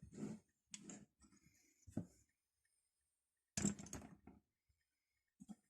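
A few faint, scattered clicks and knocks of tools being handled on a workbench, the loudest a short cluster about three and a half seconds in.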